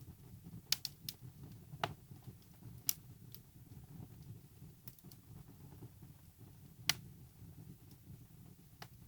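Wood fire burning in a fireplace: irregular sharp crackles and pops from the burning logs over a low steady rumble of the flames, with a few louder pops.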